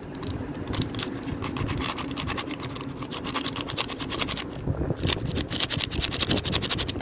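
Rapid, continuous scraping strokes of a utensil stirring a dry powder mix in a bowl.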